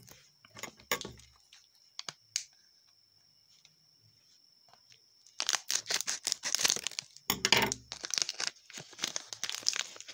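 Plastic wrapper of a small Momogi chocolate stick snack being torn open and crinkled: a few light clicks at first, then from about halfway through a long stretch of dense crackling and tearing.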